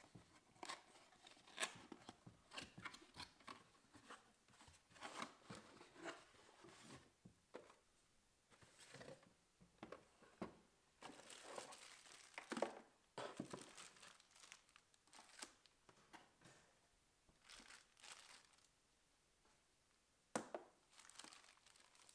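Quiet, irregular rustling, crinkling and light knocks of a cardboard box and plastic packaging being handled and opened by hand.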